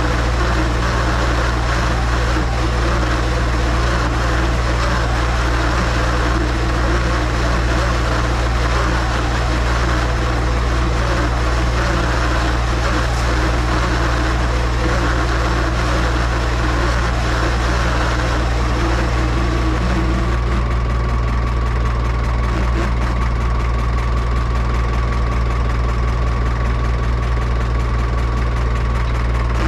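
Tractor engine running at a steady speed, with no let-up. About twenty seconds in, the hissy top of the sound drops away and a steady whine comes in.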